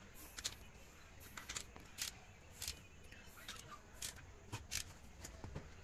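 Faint, irregular metallic clicks and scrapes as a spanner works the cylinder head nuts of a Suzuki Access scooter engine, about a dozen over a few seconds.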